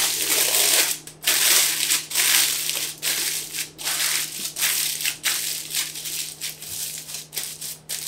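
Aluminium foil crinkling and crumpling in irregular spells as it is wrapped and pressed around a billy can.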